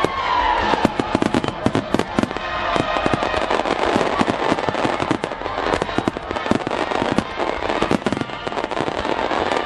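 Fireworks going off in a dense barrage: many sharp bangs and crackles a second with no let-up, over music.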